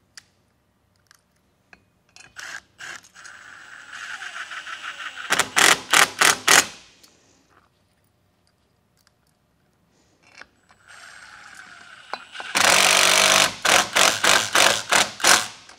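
Cordless impact driver driving structural screws through a railing post's steel base plate, in two runs. Each run starts with a whir and ends in a string of sharp hammering strikes, about four or five a second, as the screw snugs down.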